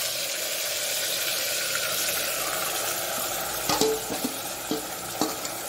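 Marinated mutton sizzling in hot oil in a pressure cooker over a high gas flame. In the second half come a few sharp metal clinks as the steel bowl and spoon knock against the cooker.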